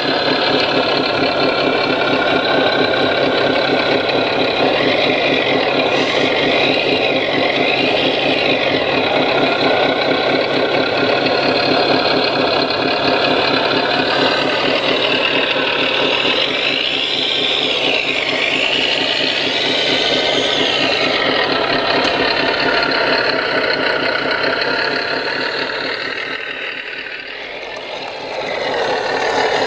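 RC model sound module playing a diesel engine running steadily, with the whine of the model's electric motors rising and falling twice as the scale track loader works its bucket.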